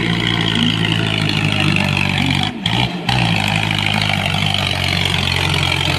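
Tractor diesel engine running steadily under load while pulling a loaded sugarcane trolley. The sound dips briefly twice about halfway through.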